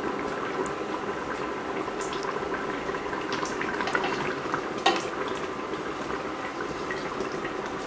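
Tomato and pepper sauce bubbling at a steady simmer in a stainless steel pot, with a spoon stirring through it and one sharp click about five seconds in.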